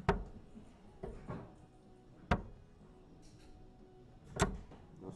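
Steel-tip darts thudding into a Winmau Blade 6 sisal bristle dartboard, three sharp knocks about two seconds apart, one per throw.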